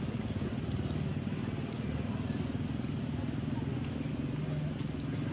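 A bird repeating a short, high, sharp call three times, each a quick down-then-up sweep, about every one and a half to two seconds, over a steady low background rumble.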